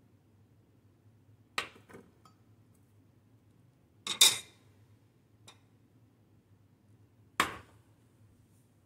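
Stainless-steel measuring cups knocking and clinking against a glass-top stove as they are handled and set down: a sharp knock about a second and a half in, a louder double knock about four seconds in, a light tick, and another knock near the end.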